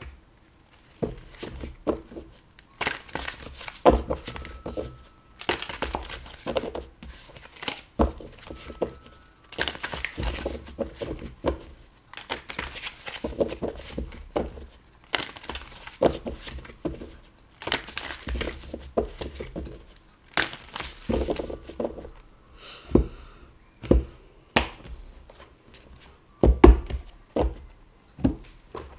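A tarot deck being shuffled by hand: repeated bursts of cards rustling and sliding against each other, broken by sharp taps.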